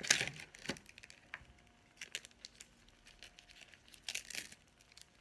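Thin plastic packaging crinkling in short bursts as it is handled and opened, the loudest burst at the start and others about two and four seconds in.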